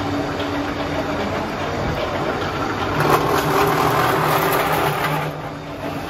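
Electric scrap-wire stripping machine running, its motor humming steadily. From about three seconds in until just after five it grows louder and harsher, as a cable, here an armoured one, passes through the stripping blades.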